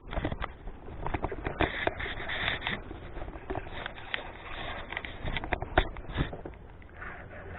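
Irregular knocks, taps and rustling close to the microphone, a few every second.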